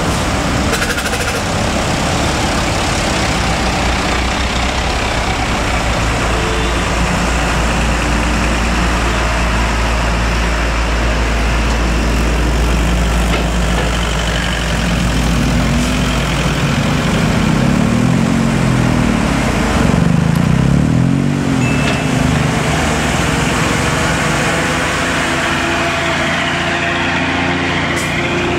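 Heavy diesel trucks idling and creeping along in slow traffic, a steady low engine hum, with an engine's pitch rising and falling a few times about halfway through.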